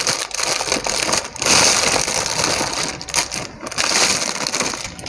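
Thin plastic bag crinkling and rustling irregularly as fresh noodles are pulled out of it by hand.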